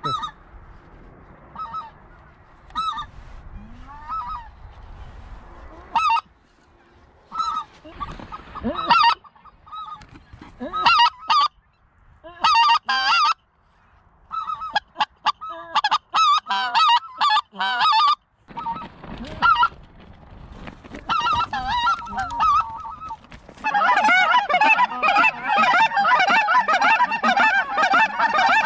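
Hunters blowing goose calls in short honks and clucks, a few at a time and in scattered groups, building into dense, continuous overlapping honking for the last few seconds as a large flock of geese comes over the decoys.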